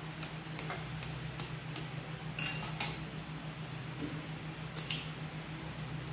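A fork tapping a raw egg's shell to crack it open, about two to three light clicks a second, then a louder cluster of knocks about two and a half seconds in and two more clicks near the end as the shell is broken apart. A steady low hum runs underneath.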